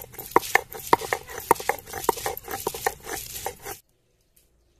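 Stone roller (nora) knocking and grinding garlic on a flat stone grinding slab (sil), in quick rhythmic strokes about three to four a second, cutting off suddenly near the end.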